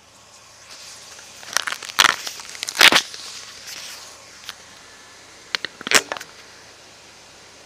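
Handling noise of a small handheld camera: fabric rubbing and scraping against its microphone as it is moved against a uniform and repositioned, with loud scraping rustles about two, three and six seconds in.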